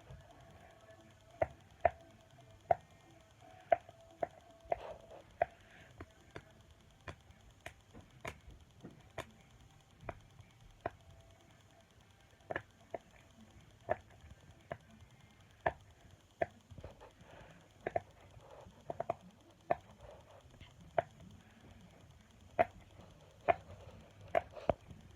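Bubbles of a large pop-it fidget toy being pressed one after another, each giving a short sharp pop at an irregular pace of about one or two a second, over a faint background hum.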